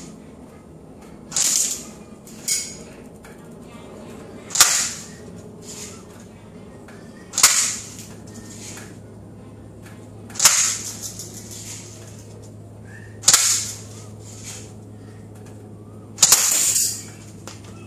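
JG AK47 Beta airsoft electric gun firing aimed shots, about six sharp cracks roughly three seconds apart, with a fainter crack soon after the first. The last one lasts a little longer.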